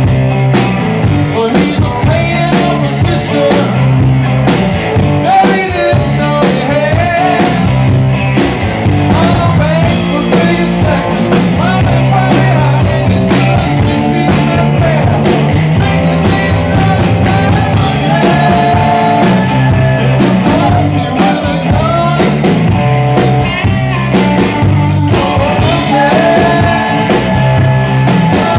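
Live rock band playing loud and steady: two electric guitars, bass guitar and a drum kit.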